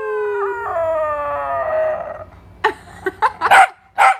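A dog howling: one long drawn-out howl that slowly falls in pitch and turns rough as it fades, followed by several short sharp barks in the second half.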